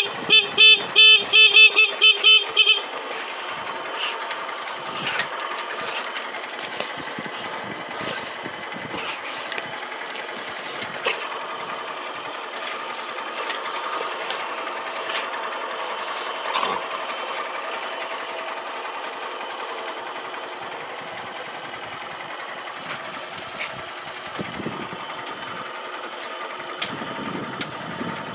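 Motorcycle horn beeped about ten times in quick succession for the first three seconds, then the motorcycle's engine idling steadily.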